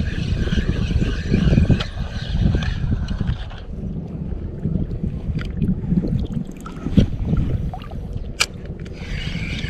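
Sea water sloshing around a camera held low near the surface, with wind rumbling on the microphone, and a few sharp clicks from handling the spinning rod and reel.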